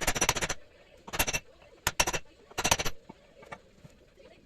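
Chisel hammering into the steel of a seized lower suspension ball joint in about five short bursts of rapid metal-on-metal strikes, cutting a groove into the joint's top so it can be driven out of the wishbone.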